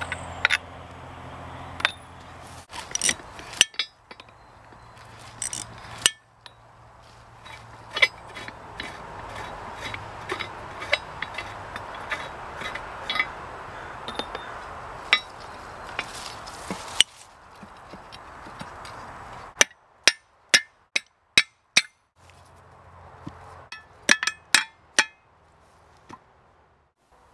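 Sharp metal clinks and clanks of steel hold-down bolts and a tool being worked out of an anvil's base, including a quick run of clinks about two-thirds of the way through.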